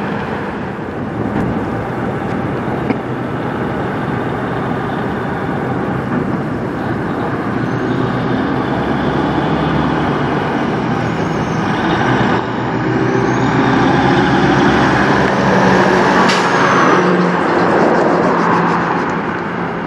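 Western Star semi truck hauling a grain hopper trailer approaches and passes close by: the diesel engine runs with tyre and road noise, loudest in the second half as it goes past.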